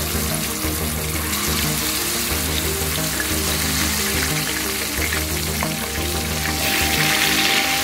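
Masala-coated trevally pieces shallow-frying in hot oil in a nonstick pan, with a steady sizzle. The sizzle grows louder near the end as another piece is laid into the oil.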